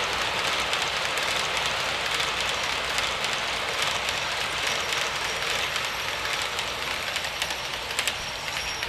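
Model Union Pacific E6 passenger train running along the track: a steady whirring hiss of motor and wheels on rail that fades slowly as the train disappears into a tunnel, with a few light clicks near the end.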